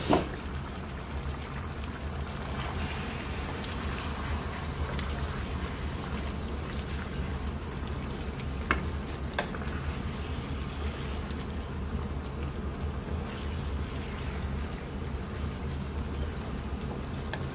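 Chicken curry simmering and sizzling in a nonstick wok with a steady bubbling crackle as it is stirred with a wooden spatula. A few sharp clacks of the utensil and lid against the pan stand out, at the start and twice around the middle.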